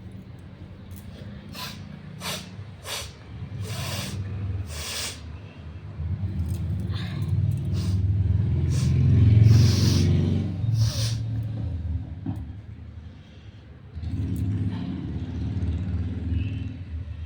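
A motor vehicle's engine rumbling past, swelling to its loudest about nine to ten seconds in and returning near the end. Before it, a quick run of five short sharp hissing sounds.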